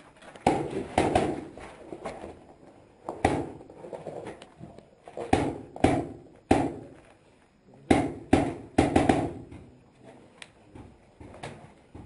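A magfed paintball marker fires about a dozen sharp pops in irregular bursts of one to three shots. The pops echo in a small brick room.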